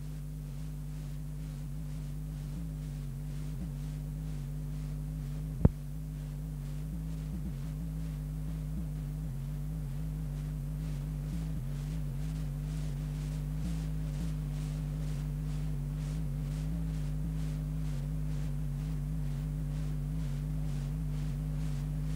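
Steady electrical mains hum, with one sharp click about six seconds in.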